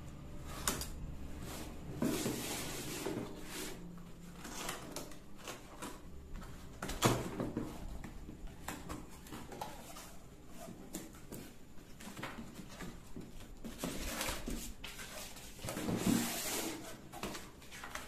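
Cardboard box being opened and unpacked by hand: irregular scrapes, knocks and rustles of cardboard and paper, with louder scraping about 2, 7 and 16 seconds in.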